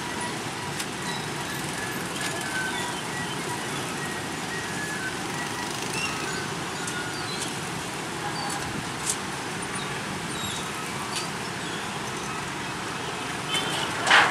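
Steady engine noise of motorcycles idling at a railway level crossing, mixed with a CC 201 diesel-electric locomotive running slowly, with a brief louder noise near the end.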